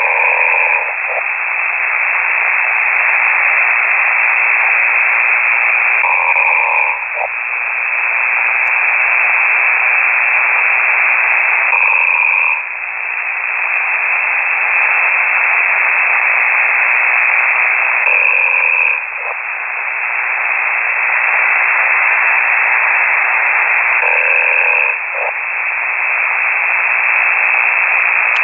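A ham radio operator snoring on the air, heard through a KiwiSDR receiver under steady radio hiss, one snore about every six seconds.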